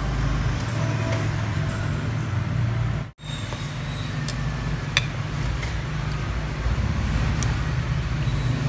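Steady low background rumble with a single light click about five seconds in, cut off briefly by a sharp dropout about three seconds in.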